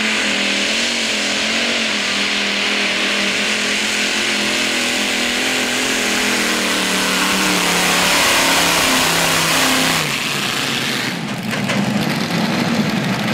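Modified pulling tractor's engine running flat out under load as it pulls the sled, loud and steady with a dense hiss over a held tone, then cutting back about ten seconds in.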